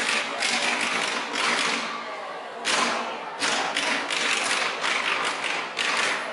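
An ensemble of drumsticks striking improvised drums made from clear plastic containers, played in unison in a taiko-style rhythm of repeated sharp hits. There is a brief lull about two seconds in before the hits resume.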